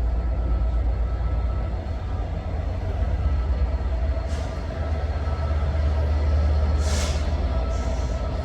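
Diesel train's engine running at the platform with a steady low rumble, and two short hisses of air, about four and seven seconds in, typical of air brakes.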